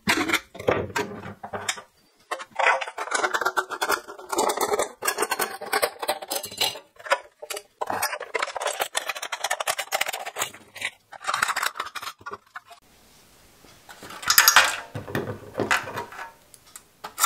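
A knife and then scissors cutting through a thin aluminium beverage can, the soft metal crinkling and crackling in quick irregular snaps. There is a short lull about two-thirds through, then a louder burst of crinkling.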